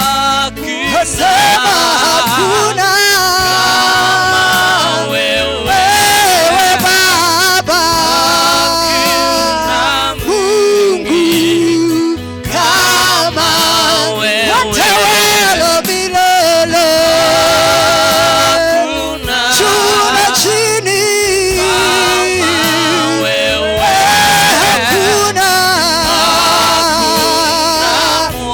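Music with a singing voice: a wavering melody line over a steady bass line, dipping briefly twice.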